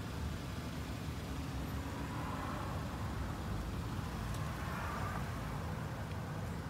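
Steady low background rumble with a light hiss, and two faint wavering whines near the middle.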